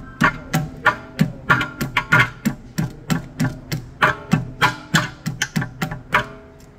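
Hammer blows on the metal parts of a car's rear brake, about three a second with a few quick doubles, each leaving a short metallic ring: the parts are being knocked free where dirt has stuck them.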